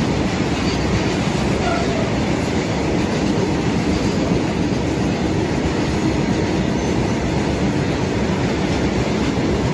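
Freight train of open-top box wagons passing close by at speed, with a steady noise of wheels running on the rails.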